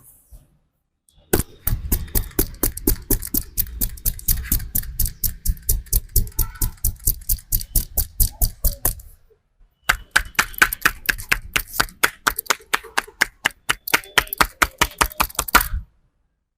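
Percussive massage strokes: the barber's hands striking the client in quick succession, about five strikes a second. There are two long runs with a short pause between them.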